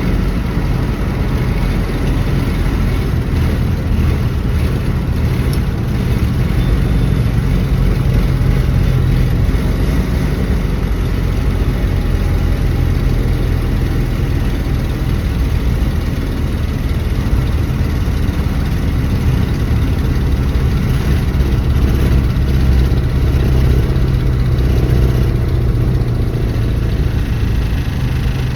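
A 1974 Dodge Dart's engine running steadily, with most of its sound low.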